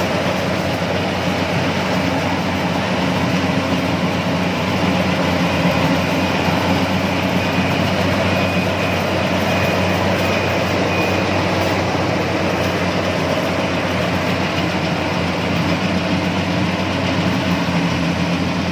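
Compact rice combine harvester running steadily while cutting and threshing in the paddy: a continuous, even engine-and-machinery drone.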